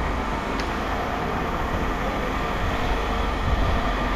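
A steady low rumble of running machinery, with a faint click about half a second in.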